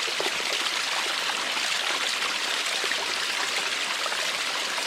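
Steady rush of creek water, an even hiss with no rhythm or pitch.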